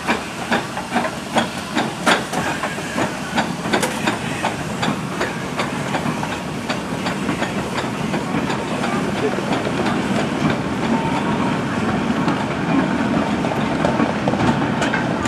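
WD Austerity 0-6-0 saddle tank steam locomotive working a goods train, its exhaust beating at about two and a half a second. The beats fade after about halfway as the engine moves off, leaving the steady rumble of the goods wagons rolling past.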